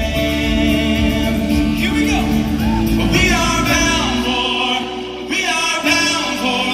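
Live song through a PA: a woman singing lead, backed by two acoustic guitars.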